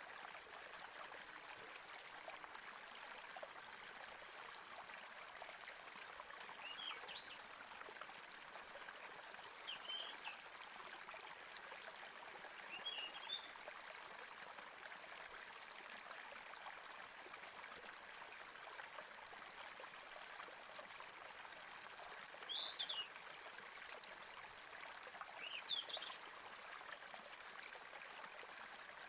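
Faint steady hiss like running water, with five short high chirps spread a few seconds apart.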